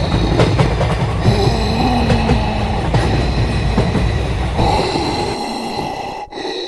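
A train running past with a heavy rumble that eases about four and a half seconds in, then cuts off.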